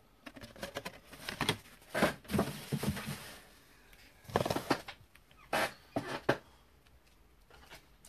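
Cardboard trading-card mini boxes being handled and set down on a tabletop: a string of irregular taps and knocks with light rustling, stopping about two-thirds of the way through.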